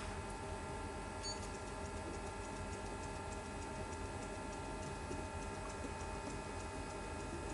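Endodontic motor handpiece driving a NiTi rotary file in a 90-degree back-and-forth swing at 100 rpm. It makes a steady hum with light regular ticks, about three a second, starting a little over a second in.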